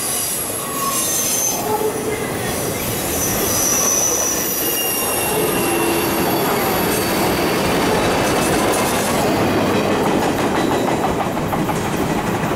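Double-stack intermodal well cars of a freight train rolling past: a steady rumble and rattle of steel wheels on rail, with shifting high-pitched wheel squeal coming and going through the first half.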